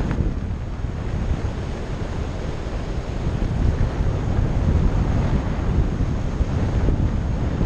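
Wind rushing over a GoPro's microphone in steady, gusting buffets, strongest in the low rumble, as a skydiver descends under an open parachute.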